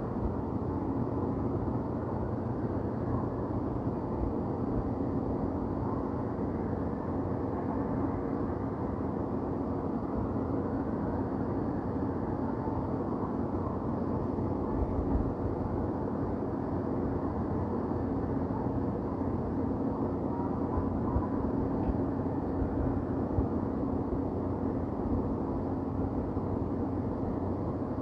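City ambience: a steady low rumble of distant traffic with a faint continuous hum.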